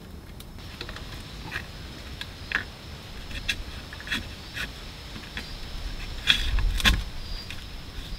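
Scattered scuffs and soft knocks of a person handling cord and moving on dry dirt, with a couple of louder thumps near the end, over a steady high insect buzz.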